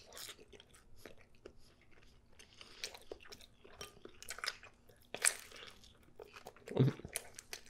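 Close-miked chewing of a bacon-and-leek alfredo pizza: crisp crust crunching and wet mouth sounds in quick, irregular clicks, with a louder crunch about five seconds in.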